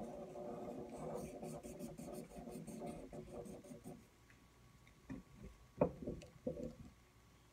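Felt-tip marker scribbling quickly on sketchbook paper for about four seconds as a shape is coloured in. Then come a few scattered taps and clicks of markers being handled on the table, the sharpest just before six seconds in.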